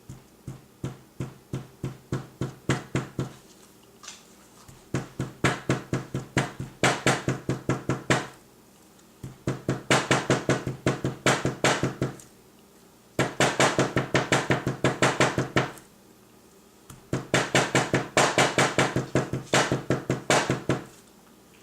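Rapid, even taps of a small metal dent-repair weight on a MacBook Pro's aluminum lid through a chamois cloth, knocking out a dent. The taps come about five a second in five runs of a few seconds each, with short pauses between.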